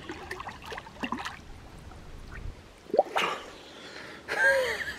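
Water splashing and dripping as a man ducks under cold spring water and comes back up. There is a sudden sharp sound about three seconds in, and a drawn-out, wavering vocal cry from the cold near the end.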